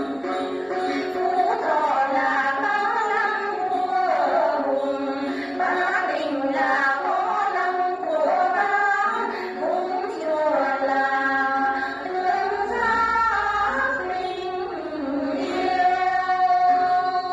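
A chorus of women singing a Tày then song together, accompanied by plucked đàn tính gourd lutes, holding one long note near the end. Heard through a television's speaker.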